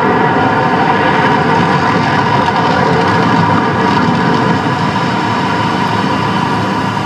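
The Mirage volcano attraction erupting: a loud, steady droning rumble from its fire effects and amplified show soundtrack, easing slightly about four and a half seconds in as the flames die down.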